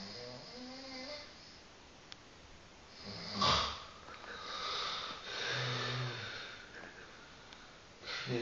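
A man snoring in his sleep: a series of snores, the loudest and sharpest about three and a half seconds in, then a long drawn-out one, with another starting near the end.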